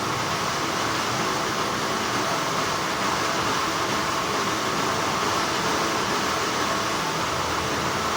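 Continuous hum of textile factory machinery, a steady, even noise that does not change in level.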